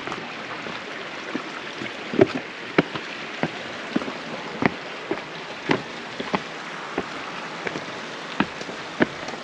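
Footsteps on a rocky trail, about one and a half steps a second, over a steady hiss of running water.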